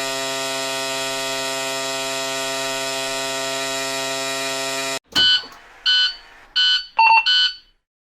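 Electric buzzer sounding one long, harsh, steady buzz for about five seconds that cuts off suddenly, followed by a different buzzer giving short blasts about every 0.7 s, the last two closer together and differing in pitch.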